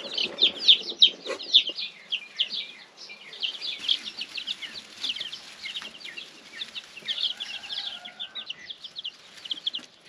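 A brood of young chicks peeping: a rapid stream of short, high, downward-sliding chirps that thins out toward the end.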